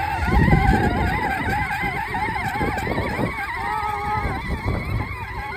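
The electric motor and gearbox of a 12-volt Yamaha kids' ride-on ATV whining as it drives over grass, the pitch wavering up and down, over a low rumble that is loudest about half a second in.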